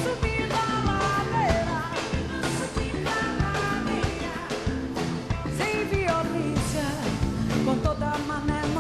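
Live band music: a woman singing a melodic line over dense, driving percussion and band accompaniment.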